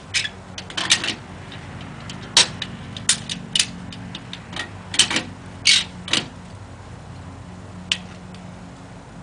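Irregular sharp metallic clicks and clinks of a tie-down strap's hook and buckle being handled and fastened, stopping about six seconds in. Under them runs the steady low hum of an idling engine.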